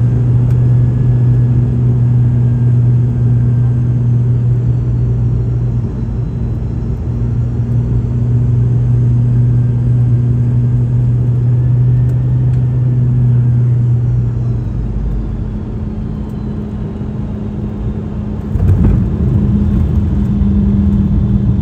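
Boeing 717 cabin noise on landing: the rear-mounted Rolls-Royce BR715 turbofans make a steady drone with a faint whine, which eases about fourteen seconds in as thrust comes back. Near the end a thump as the wheels touch down, followed by a louder rumble of the rollout.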